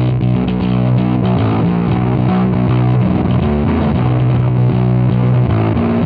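Electric bass (a 1979 Music Man StingRay) played through a Wren and Cuff Russian Tall Font fuzz pedal into an Ampeg B15 Portaflex amp: a distorted bass riff of held notes that change pitch every half second or so.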